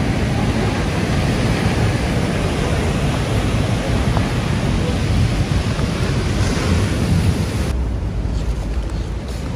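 Steady rush of ocean surf breaking on a sandy beach, mixed with wind rumbling on the microphone. The higher hiss thins out suddenly near the end.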